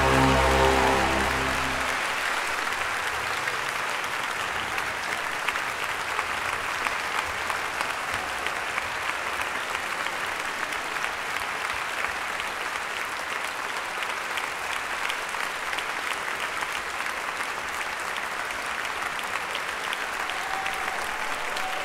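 A symphonic wind band's final held chord is cut off about two seconds in. A large concert-hall audience then breaks into steady applause that carries on through the rest.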